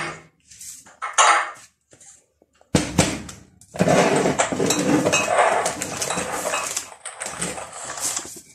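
Kitchen storage containers clinking and rattling as they are handled. A few light clicks come first, then about three seconds in a dense continuous rattle lasting about four seconds, ending in scattered knocks.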